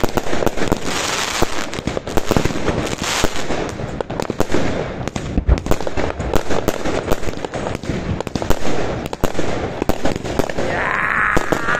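Aerial fireworks going off in quick, overlapping succession: a steady run of bangs and crackling.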